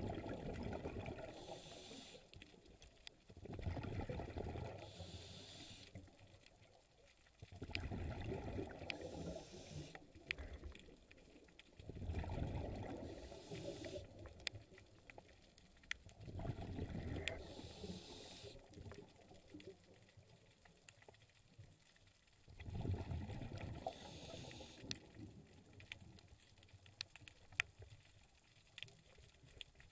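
Scuba diver breathing through a regulator: each breath a hissing inhale followed by a burst of rumbling exhaust bubbles, about every four seconds, with a longer pause near the middle. Scattered sharp clicks sound over it.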